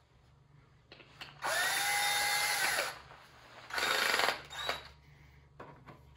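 Power drill driving a screw to fix the head onto a taxidermy manikin. One run of about a second and a half, its motor whine rising as it starts and dropping as it stops, then a shorter run a moment later.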